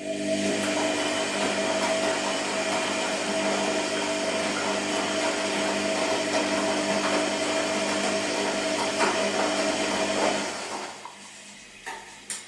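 Washing machine motor turning the drum, a steady whining hum for about ten seconds that then winds down and stops, followed by a couple of faint clicks.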